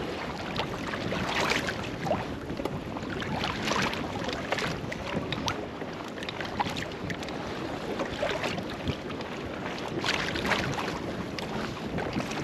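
Wind buffeting the microphone over water slapping and lapping against a small boat, with scattered short sharp splashes or knocks.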